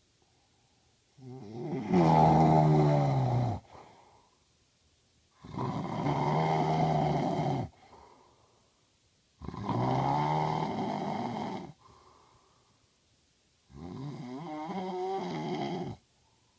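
A man snoring loudly: four long, pitched snores about four seconds apart, each followed by a faint breath, the first the loudest.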